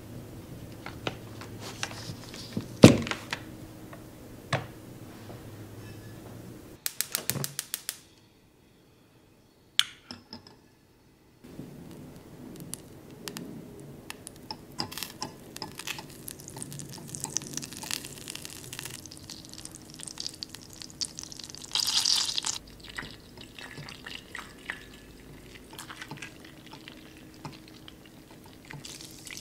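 A kitchen knife cutting through a block of cold butter, with one sharp thunk of the blade against the board about three seconds in, then a quick run of clicks. After a brief dead silence, butter melts in a glass saucepan over a gas flame, stirred and scraped with a silicone spatula, with light bubbling and crackling as it turns liquid.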